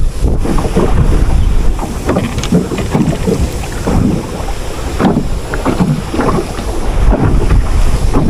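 Wind buffeting the microphone with a steady low rumble, mixed with irregular rustles and knocks.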